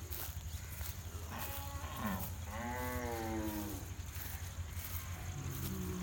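Bull mooing: a few calls, the strongest about two and a half seconds in and falling slightly in pitch, then a lower, longer moo near the end.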